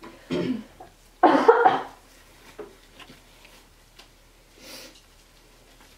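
A person coughing: a short cough just after the start, then a louder one about a second in. Fainter rustling of examination gloves being pulled on follows.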